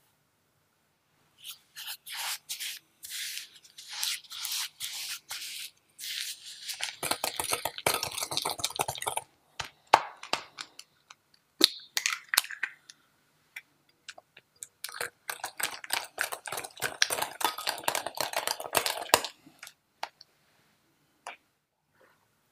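Caster sugar poured onto softened butter in a glass bowl, then beaten in by hand in runs of quick scraping strokes against the glass. Partway through, an egg is added with a few light clicks and taps, and the stroking picks up again as it is mixed in.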